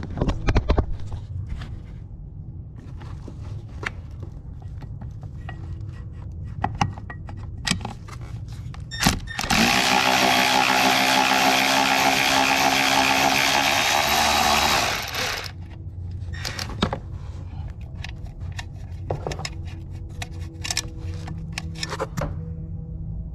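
Cordless electric ratchet running in one continuous burst of about six seconds, starting about ten seconds in, backing out a bolt. Before and after it come scattered light clicks and knocks of tools being handled.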